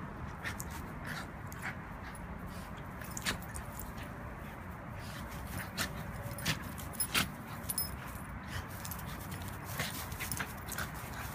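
Two terriers play-fighting on grass: scuffling with a scattered run of short, sharp snaps and clicks, thickest around the middle, over a steady low background rumble.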